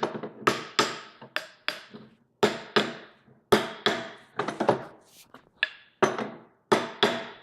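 Hammer tapping on a newly pressed-in axle shaft U-joint, a run of sharp metallic knocks about two a second, unevenly spaced. The taps free up a stiff new joint so that it flexes.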